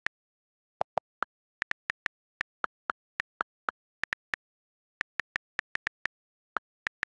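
iPad on-screen keyboard key-click sounds while a name is typed: a quick, uneven run of short clicks, roughly three or four a second, with silence between them.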